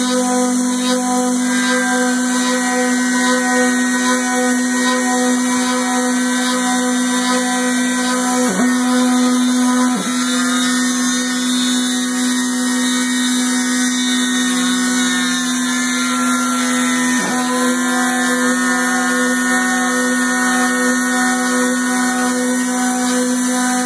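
Homemade CNC milling machine running: a steady motor whine, with higher tones above it that slowly shift in pitch. The pitch dips sharply and recovers three times.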